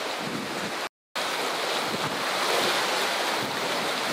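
Steady rush of wind on the microphone over choppy water washing below, broken by a brief dropout about a second in.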